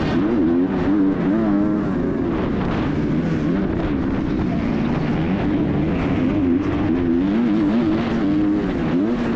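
MX2 motocross bike's 250cc engine at race pace, heard from the rider's helmet, revving hard with its pitch rising and dropping every second or so as the throttle is opened and shut through turns and onto a straight.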